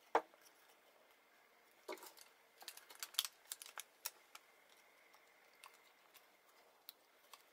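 Dowelling jig being set against a pine board and a one-handed quick clamp being squeezed onto it: a click at the start, a knock about two seconds in, then a run of irregular clicks from the clamp's trigger, thinning to occasional ticks.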